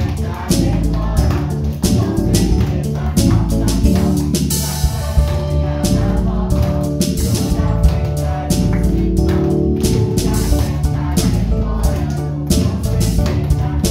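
Music with a steady drum beat, bass and guitar.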